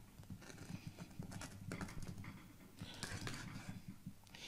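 Knife chopping lemongrass stalks on a wooden cutting board: faint, irregular taps of the blade striking the board.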